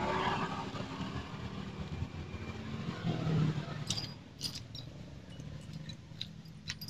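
Case bolts and tools clinking against a motorcycle engine's crankcase as the bolts are fitted by hand. The first few seconds hold soft handling noise over a low, steady hum; from about four seconds in come scattered light metallic clicks.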